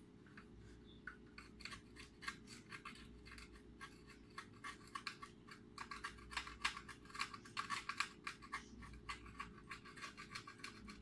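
A small hand tool scratching and clicking against LED module wiring in quick, irregular strokes, getting busier about halfway through.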